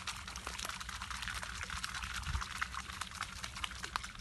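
Water splashing at the surface in a dense run of small, irregular crackles that falls away right at the end.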